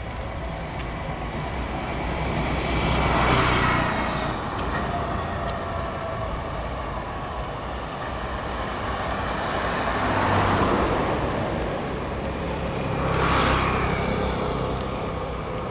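Road traffic at night: a steady hum of engines and tyres, with three vehicles passing close by, each swelling up and fading away, at about three and a half, ten and a half and thirteen and a half seconds in.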